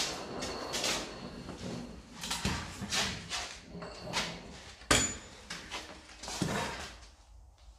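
Irregular knocks and clicks of hand-tool work on car parts in a workshop, with one sharp knock about five seconds in.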